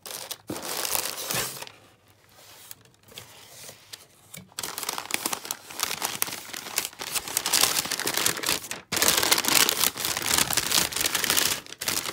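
Brown kraft packing paper crinkling and rustling as it is handled and pulled out of a cardboard box. Softer and patchy at first, it becomes loud and nearly continuous about halfway through.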